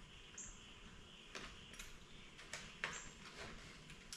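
Faint, scattered clicks and light rustling: a packaged mountain bike tire being handled and hung on a digital hanging scale. The sharpest click comes about three seconds in.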